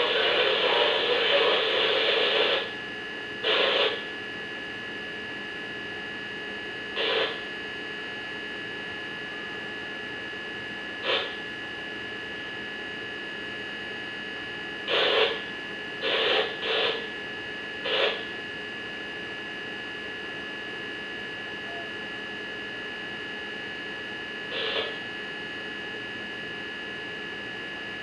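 Steady electrical hum with a few constant whine tones, broken by eight short bursts of static-like noise. A longer stretch of the same noise ends about two and a half seconds in.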